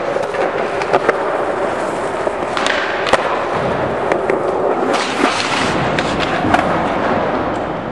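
Skateboard wheels rolling on a smooth concrete floor, broken by several sharp clacks of the tail popping and the board landing during a switch varial heelflip.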